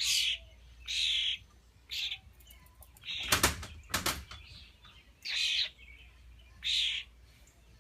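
Fledgling European starlings begging for food with short, harsh, raspy calls, about seven bursts spaced unevenly. A louder rustling burst comes about three to four seconds in.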